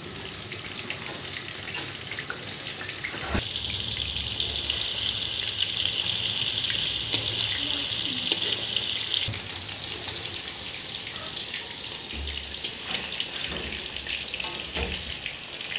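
Besan-coated fish pieces deep-frying in hot oil in a karahi: a steady sizzle that gets louder and brighter about three seconds in and eases again after about nine seconds.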